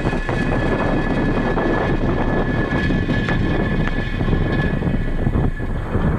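Falcon 9 first stage's nine Merlin 1D engines during ascent, heard as a loud, steady rumble with rapid crackle.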